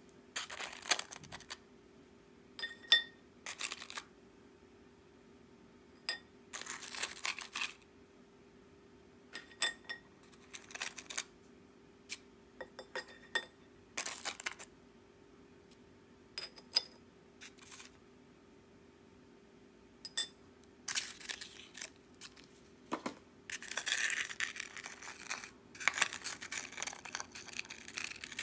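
Crisp arare rice crackers picked one by one from their tray and set down on a ceramic plate: sharp little clicks, some with a brief ring, between bursts of dry rustling and scraping as the crackers are handled in the tray. The rustling runs longer and busier near the end.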